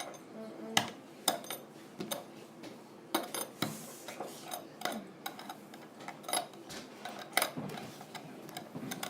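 Light, irregular clicks and taps of a fidget spinner's parts being handled and fitted back together, roughly one to two a second.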